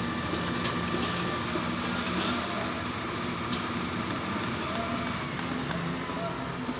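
Steady machinery noise with a constant hum and a few scattered clicks and knocks.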